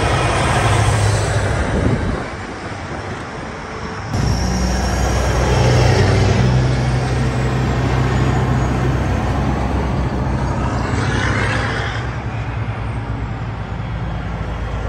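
Diesel semi-trucks rolling past, their engines giving a steady deep drone. The sound jumps suddenly louder about four seconds in.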